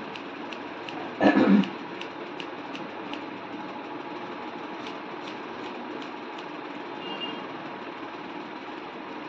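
Hair-cutting scissors snipping through long hair: crisp snips about three a second, in two short runs, over a steady background hum. A short loud burst about a second in is the loudest sound.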